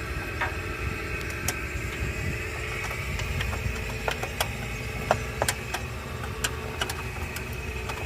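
Mercedes-Benz OM 906 inline-six diesel engine running, with a steady high whine and irregular sharp knocks over the rumble. This is the engine noise that the mechanic puts down to excessive piston clearance in the first cylinder.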